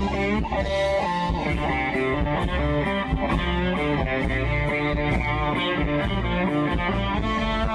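Live rock band playing, led by electric guitar over bass and drums, with a steady beat.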